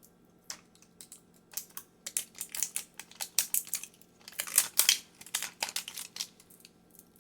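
Hands handling and opening a plastic 5 Surprise Mini Brands capsule: a run of small plastic clicks and crinkling, loudest about four and a half seconds in.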